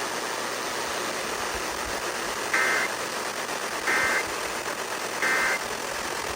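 Steady radio hiss, then three short bursts of Emergency Alert System digital data tones about a second and a half apart: the end-of-message signal that closes the alert.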